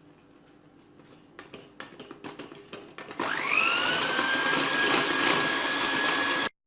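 A few light clicks and knocks, then an electric mixer starts up with a rising whine and runs steadily, whipping fresh cream with sugar and vanilla; it cuts off abruptly near the end.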